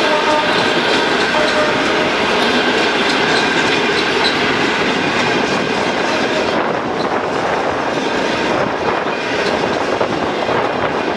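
Passenger coaches rolling past at speed close by, their wheels clicking over the rail joints in a steady run of clickety-clack under a loud rushing noise. The rushing turns a little duller about six and a half seconds in.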